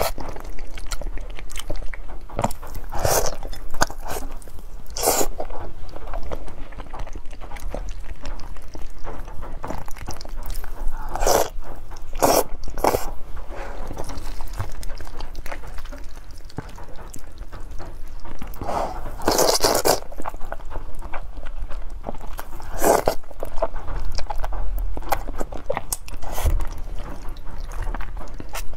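Close-miked mukbang eating sounds: chewing and biting into spicy Korean fire noodles and glazed grilled eel, with short, louder mouth sounds at intervals.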